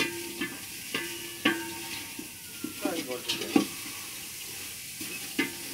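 A metal spoon stirring meat cooking in a metal pot, knocking and scraping against the pot every second or so, some knocks leaving a short ring, over a steady sizzle of the meat frying.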